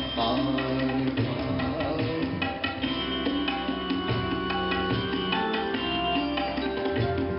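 Indian classical concert accompaniment: tabla playing under steady, sustained instrumental tones, with no singing.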